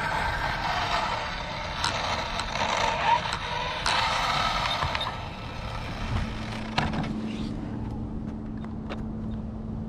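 Dual-motor Arrma Limitless RC car on 4S power accelerating away on a speed run: a loud rushing mix of electric motor whine and tyre noise that fades over about five seconds as the car gets away. After that it is quieter, with a steady low hum and a few sharp clicks.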